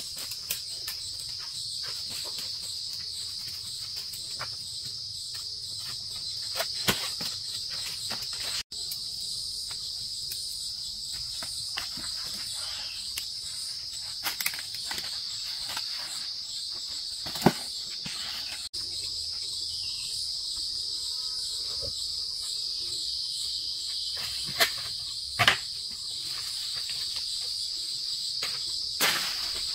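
Steady, high-pitched chorus of insects, with a few sharp knocks or taps now and then.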